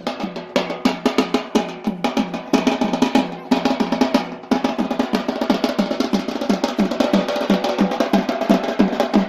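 Drums beating a fast, even rhythm for a Yemeni bara'a dance, about five strikes a second, with a fuller, denser sound from about halfway through.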